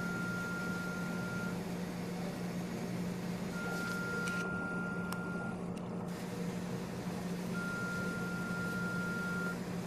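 Electronic alarm beeping in long, single-pitched tones, each about two seconds on and two seconds off, over a steady low hum.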